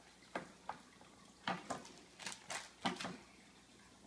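Soft clicks and knocks, about eight over a few seconds, as a small plastic toy figure is handled and set down on a wooden tabletop.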